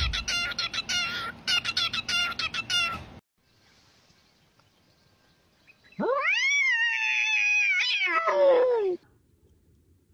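A cockatiel chirps a fast run of short whistled notes for about three seconds. After a pause, a cat gives one long meow, about three seconds, that rises and then falls in pitch.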